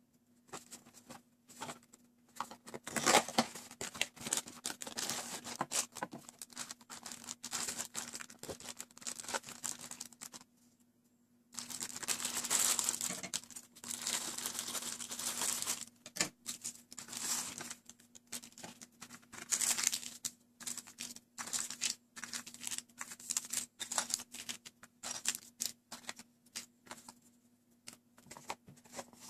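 Plastic candy-kit packaging being opened and handled: crinkling and rustling of the wrappers, with a dense run of crinkling and cutting partway through as the plastic bag is snipped open with scissors, then lighter crackles as small packets and a plastic tray are handled. A faint steady hum sits underneath.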